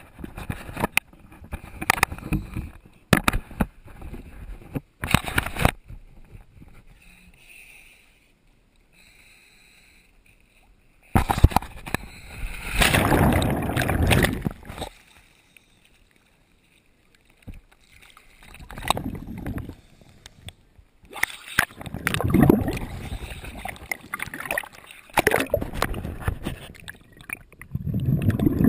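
Water sloshing, splashing and bubbling against a camera in a waterproof housing, in irregular bursts with quiet gaps between them.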